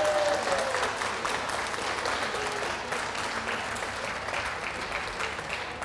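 Ringside audience applauding, dense clapping that is loudest at the start and eases off a little.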